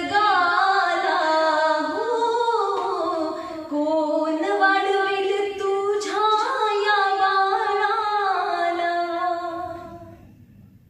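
A woman singing solo, holding long, wavering notes of a slow Marathi song of mourning for a mother, with no words clearly sung; the voice fades out about ten seconds in.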